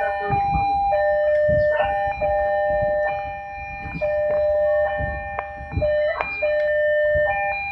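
Electronic railway level-crossing warning alarm sounding as a train approaches, alternating between a lower and a higher tone about once a second.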